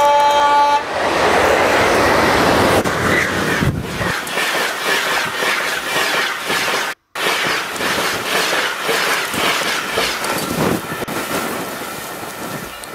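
An electric train sounds a short horn blast, then passes close at speed: a loud rush of noise and wheels clattering over the rail joints, which fades toward the end. The sound cuts out for a moment just past halfway.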